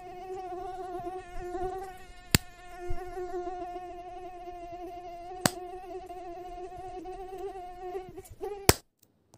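Mosquito buzzing close by in a steady, slightly wavering whine. Sharp slaps of hands swatting at it come about two and a half seconds in, about five and a half seconds in and near the end. The buzz stops just before the last slap.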